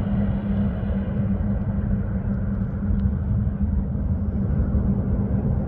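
Aircraft engines running with a steady low rumble and a constant low hum, level throughout.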